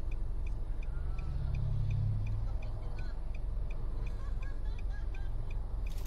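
Steady low engine rumble that swells briefly between about one and two and a half seconds, with faint regular pips about twice a second.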